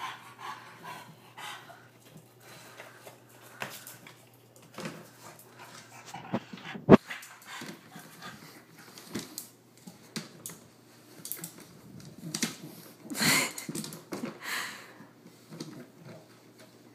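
Bulldog pawing and scrabbling at a plastic food storage bin: irregular knocks and scrapes on the plastic, with a sharp knock about seven seconds in and a longer, louder burst about thirteen seconds in.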